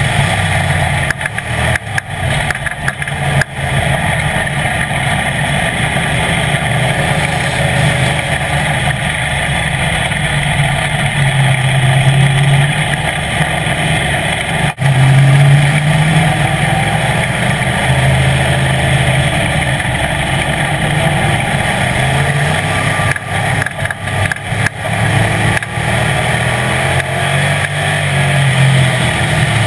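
Street stock race car engine running hard at racing speed, heard from inside the car's cockpit. The engine note swells and eases every few seconds with the throttle, with a few short ragged breaks.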